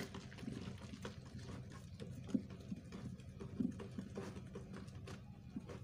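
A stirrer knocking and scraping against the sides of a plastic bowl while a thin, foaming liquid-soap mixture is stirred hard: an irregular patter of taps with a few louder knocks.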